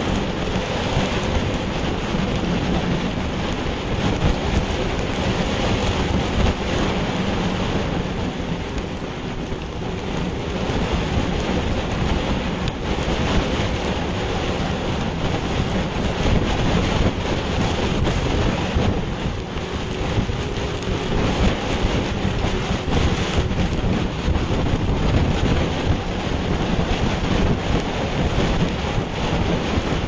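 Strong wind and heavy rain buffeting an outdoor webcam's microphone: a loud, steady rushing noise with no breaks.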